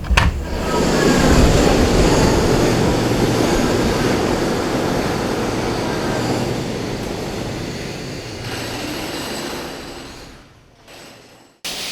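Construction noise: a loud, steady rumbling din that slowly fades and stops about ten and a half seconds in. A different scraping noise starts just before the end.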